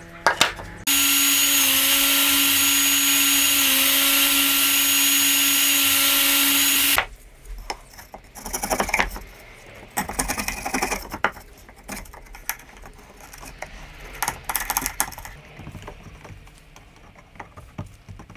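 An electric power tool's motor runs at a steady high speed for about six seconds, dipping briefly in pitch twice, then cuts off abruptly. Scattered light clicks and scrapes follow.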